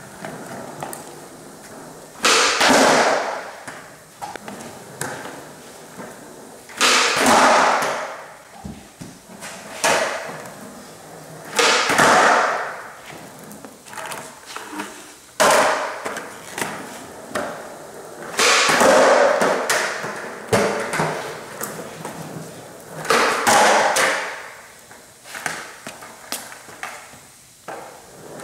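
Skateboard on a concrete floor during repeated trick attempts: about six times a sudden board pop or landing, each followed by the wheels rolling away and fading over a second or so, with lighter taps of the board in between.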